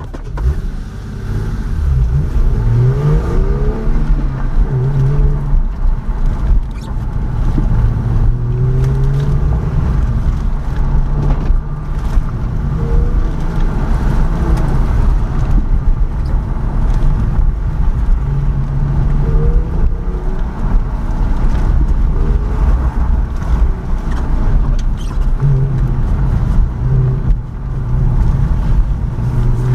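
Car engine accelerating hard off the start of an autocross run, then revving up and falling back again and again as the car is driven through the cone course, over steady road and wind noise, heard from inside the car.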